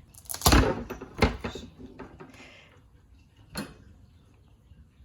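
A kitchen knife thudding down through a hard raw spaghetti squash onto a cutting board: two heavy knocks about a second apart near the start, softer clatter, then one more knock a few seconds later.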